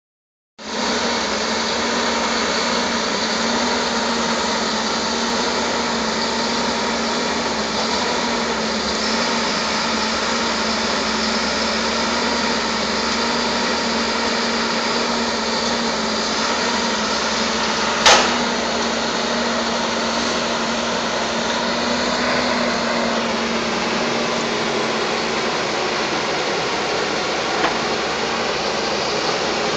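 Diesel engine of a loaded John Deere forestry forwarder running steadily with a constant hum as the machine moves along a forest track. A single sharp knock stands out about two-thirds of the way through.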